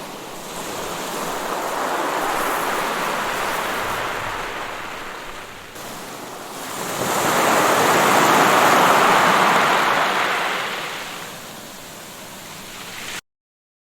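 Waves washing onto the shore, two surges that rise and fall, the second louder. The sound cuts off suddenly near the end.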